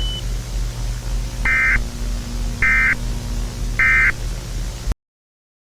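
Three short Emergency Alert System end-of-message data bursts, the buzzy warbling digital tones of the EAS header code, evenly spaced about a second apart over a steady low hum. Everything cuts off abruptly near the end.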